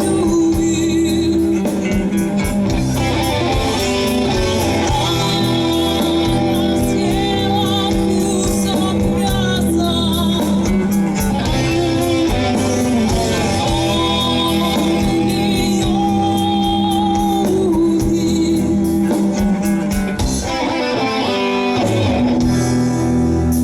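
Rock band playing live: an instrumental passage led by guitar.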